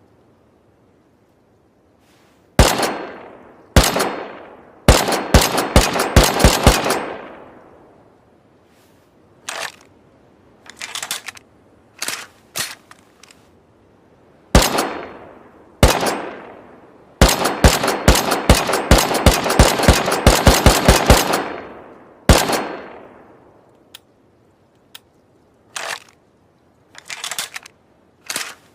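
Gunshot sound effect of a makeshift semi-automatic rifle: single shots and fast strings of about four shots a second, each shot ringing out briefly. Quieter clicks fall between the volleys and near the end.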